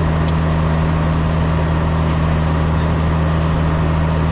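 Heavy farm machinery engine running steadily at constant speed, a low drone with no change in pitch.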